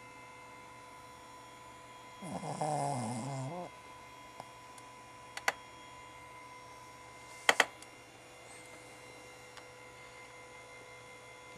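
Cavalier King Charles Spaniel snoring in her sleep: one wavering, pitched snore starting about two seconds in and lasting about a second and a half. A sharp click follows about five and a half seconds in, then two quick, louder clicks about seven and a half seconds in.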